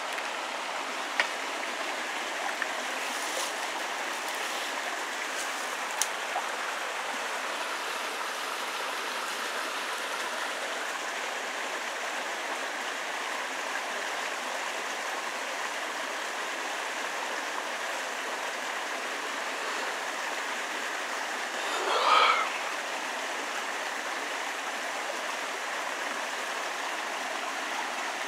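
Steady rush of running water, with a few faint clicks in the first several seconds and a brief call that wavers in pitch about 22 seconds in.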